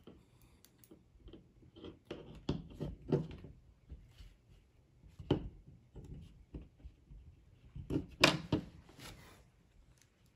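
Hands handling small VEX robot parts, a plastic 36-tooth gear on a metal shaft, while a rubber band is threaded through the gear: scattered light clicks and knocks, the loudest near the end.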